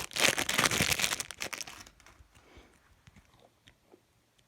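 Foil wrapper of a Match Attax trading card pack crinkling as it is torn open, for about the first two seconds. Then it goes quiet apart from a few faint clicks of cards being handled.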